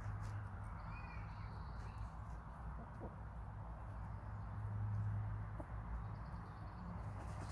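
Faint, brief hen calls over a steady low hum, with one short arched chirp about a second in.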